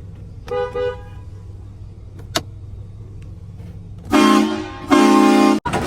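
Multi-tone train-style air horn giving two loud, long chord blasts about four seconds in, the second cut off abruptly. Earlier there is a brief double toot, all over a low steady engine hum.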